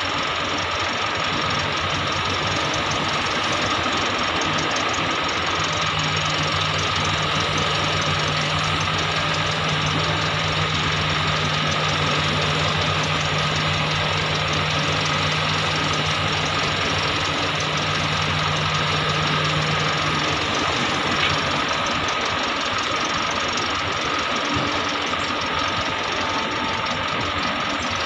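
Diesel engine of a large XCMG XE370CA crawler excavator running steadily as it digs and loads ore, with a constant high whine over the engine's drone. A low steady hum joins in for about fifteen seconds in the middle.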